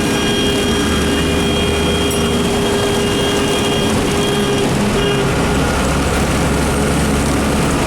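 Public bus engine running on the move under a constant wash of heavy rain and road noise, with a steady whine that drops out about five seconds in.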